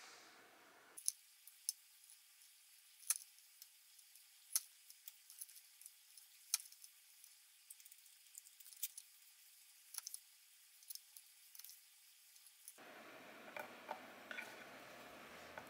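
Sparse, irregular light clicks and taps of cut watermelon radish pieces being handled and set down on a bamboo cutting board, thin and faint. Near the end the sound fills out and a few more taps come as asparagus spears are laid on the board.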